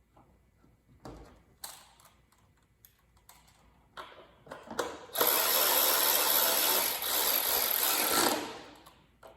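A few clicks and taps of parts being handled, then a cordless power tool runs steadily for about three seconds, tightening a fastener, and winds down near the end.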